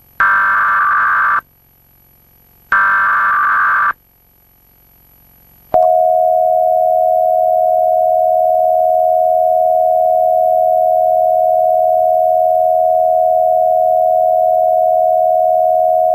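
Emergency Alert System SAME header data bursts, two screechy digital warbles about a second long with a gap between them, pitched down. About six seconds in, the EAS two-tone attention signal starts: a loud steady dual tone, pitched down well below its usual 853 and 960 Hz, held without change.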